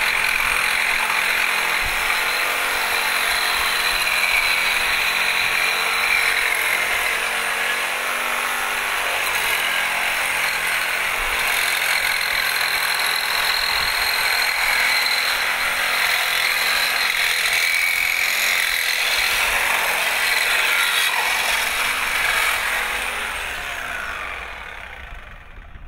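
Corded reciprocating saw fitted with an Irwin blade, sawing through metal tubing clamped in a vise: a steady, loud cutting noise of blade on metal that dies away near the end as the saw stops.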